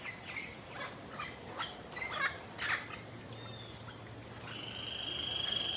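Tropical forest ambience: scattered short bird calls over a thin, steady high insect whine. About four and a half seconds in, a louder steady insect buzz swells in.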